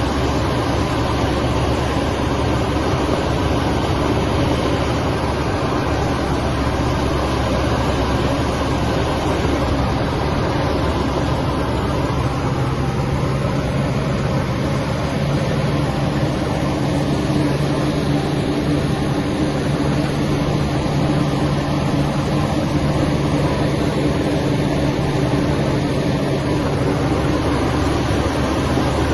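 Heavy snow-clearing machine's engine running steadily, with a constant low hum.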